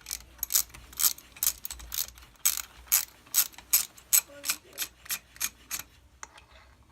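Socket ratchet clicking in steady strokes, about two clicks a second, as the last cylinder-head bolt is loosened. The clicking stops about six seconds in.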